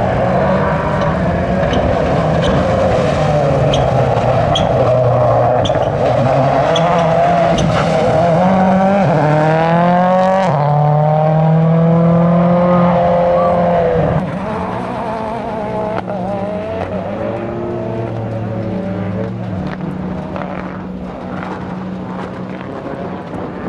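Ford rally car engines running hard, the pitch climbing in repeated sweeps as a car accelerates up through the gears. About two-thirds of the way through the sound drops suddenly to a quieter, more distant engine pulling steadily.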